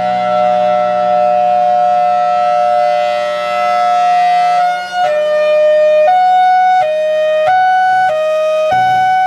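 Federal Signal Thunderbolt 1003 outdoor warning siren sounding, loud and held steady on a two-note chord, then from about five seconds in switching to hi-lo, stepping between a higher and a lower pitch about every two-thirds of a second. Under the hi-lo comes the hiss of its weighted air relief valve under the blower cover, venting the extra air as the solenoids close.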